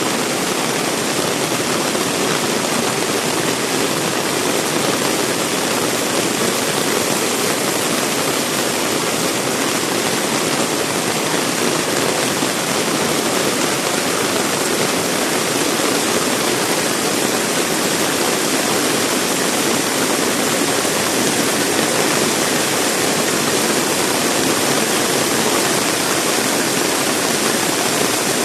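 Heavy rain falling, a loud, steady hiss of water that keeps up without a break.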